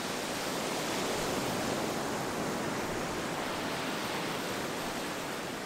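Sea surf breaking on a sandy beach: a steady wash of waves.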